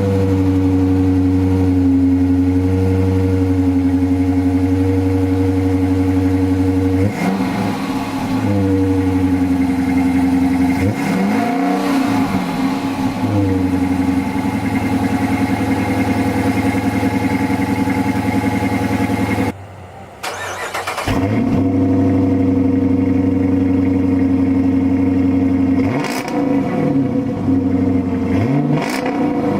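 2015 Dodge Challenger R/T's 5.7 HEMI V8 on its stock exhaust, mid mufflers still in place, idling steadily with the throttle blipped a few times, each rev rising and falling. The sound drops out briefly about two-thirds of the way through and the idle picks up again.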